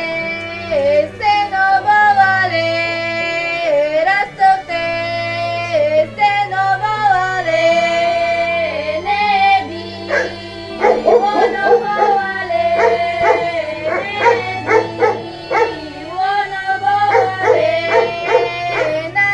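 Background music: a produced track with long held bass notes under a sliding, voice-like lead melody, turning to quick repeated chopped notes about halfway through.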